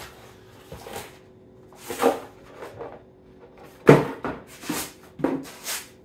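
Handling sounds from unpacking a boxed power-station battery pack: a few scattered knocks and cardboard scrapes, the loudest a thud about four seconds in.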